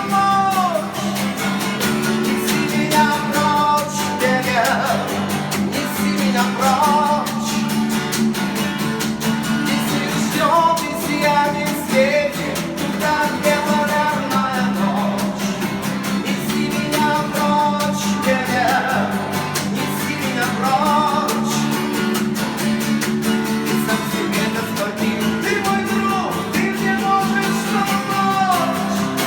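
Song music with guitar and a melody line running over steady low accompaniment, without recognisable lyrics.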